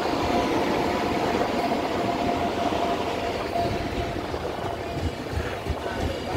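The Mahabodhi Express arriving: an electric locomotive and its coaches rolling past along the platform, wheels rumbling on the rails. A steady whine fades out about halfway through, and a few low thumps come near the end.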